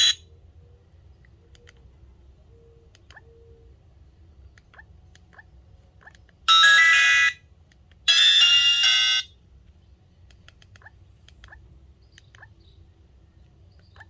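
iSwag Shark feature phone playing ringtone previews from its speaker. A tune cuts off right at the start, then two short snatches of melodic ringtone come about 6.5 s and 8 s in, each stopping abruptly after about a second, with faint keypad clicks between.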